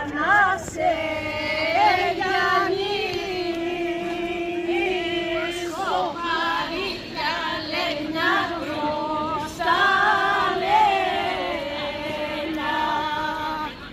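A group of women singing a traditional Damasi Palm Sunday dance song together, unaccompanied, in long held phrases with short breaks between lines.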